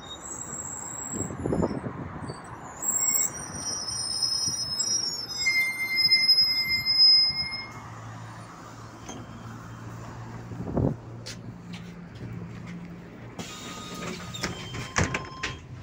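MAZ city bus pulling in to the stop with high-pitched squealing brakes, the squeal shifting between several pitches for about seven seconds, then its engine idling with a low hum. Near the end comes a burst of hiss and clicks as the doors work.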